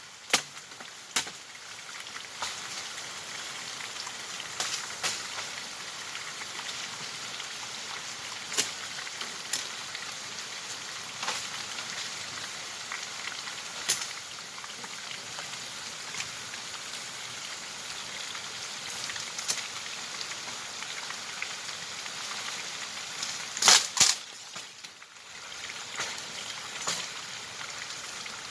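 Steady hiss of running water, with scattered light knocks and taps and a louder double knock near the end.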